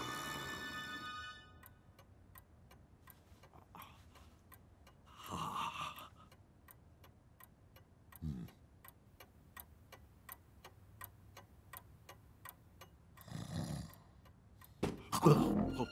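A clock ticking steadily about twice a second, with a sleeper's slow, drawn-out cartoon snores every few seconds, the loudest snore near the end. A short stretch of music fades out at the start.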